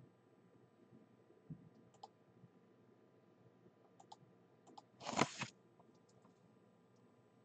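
Quiet handling noises: a few faint clicks, then a brief rustle about five seconds in as a paper checklist booklet is moved away.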